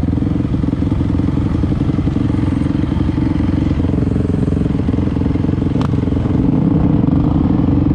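Dirt bike engine running steadily under way, with one sharp click about six seconds in.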